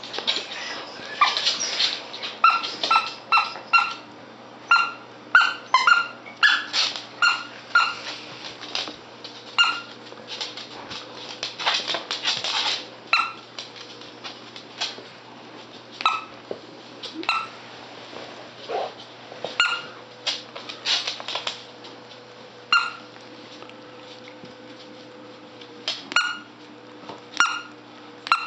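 A squeaky plush dog toy being squeaked over and over as West Highland white terriers chew and tug at it: short squeaks, all at the same pitch, coming in quick runs over the first half and more spread out later.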